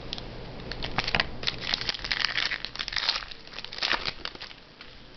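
Crinkling and rustling of plastic and card stock as trading cards and their packaging are handled. The crackling comes in dense bursts from about a second in and dies away near the end.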